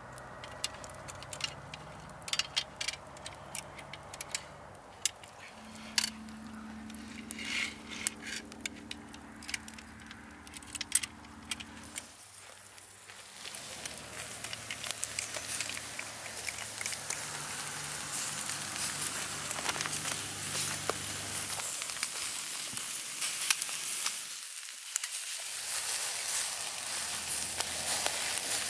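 Metal kebab skewers loaded with eel pieces clinking as they are laid on a charcoal grill, then, about halfway through, a steady sizzling with crackles as the eel roasts over the hot coals.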